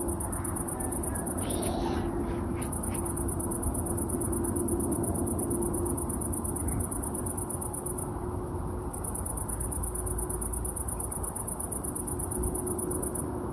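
Low, steady distant rumble of a Boeing 777-200LR's GE90 engines passing high overhead, under a continuous high-pitched insect trill that breaks off briefly two or three times.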